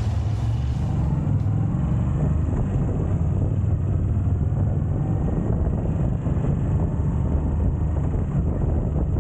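Moto Guzzi V7 III's air-cooled transverse V-twin running steadily under way on the road.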